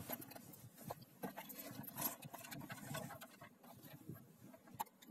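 Faint rustling of fabric with scattered light clicks and taps as the stitched trouser waistband is pulled out from under a sewing machine's presser foot.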